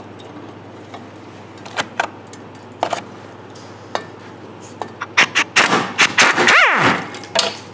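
Socket tool on a long extension working a rusted exhaust flex-pipe flange nut while a wrench holds the bolt. A few scattered clicks, then a dense burst of rapid metallic rattling and clacking from about five seconds in, with a short whine that drops and rises in pitch.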